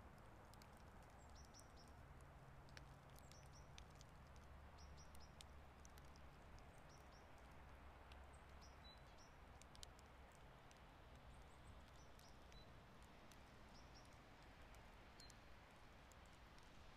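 Faint outdoor ambience during light snowfall: a low steady rumble with scattered faint ticks, and a few short, high bird chirps now and then.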